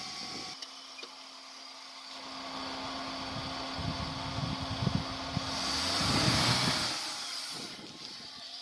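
Hyundai Santro hatchback's engine running as the car pulls away over dry dirt ground, with a steady hum and a swell of engine and tyre noise about six seconds in.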